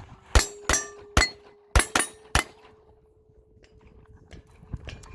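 Six pistol shots fired in quick succession over about two seconds, each a sharp crack with a short ring after it.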